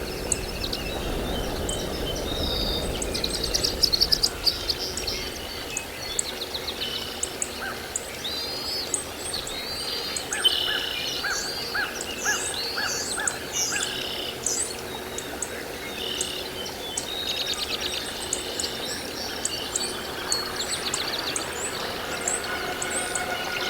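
Wild birds chirping and singing, many short high calls and trills overlapping, with a run of evenly spaced lower notes about ten seconds in.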